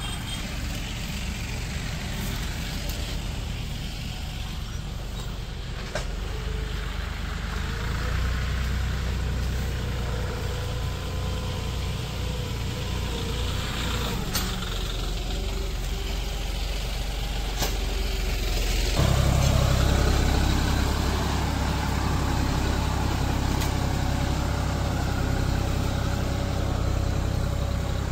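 John Deere 5050D tractor's three-cylinder diesel engine running steadily under load as it pulls a tine cultivator through wet soil. It grows louder and deeper about two-thirds of the way in.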